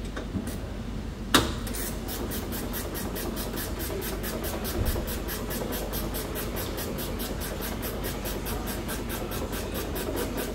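A single sharp knock about a second in, then steady, even mechanical ticking, about five ticks a second.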